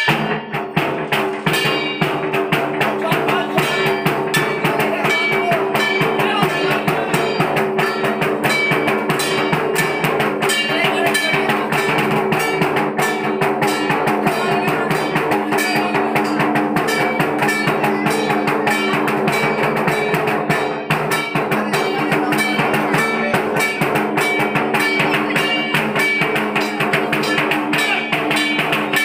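Loud music with a fast, busy drum beat, starting suddenly.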